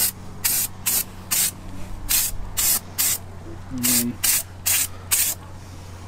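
Aerosol spray paint can hissing in short, quick bursts, about ten sprays at roughly two a second.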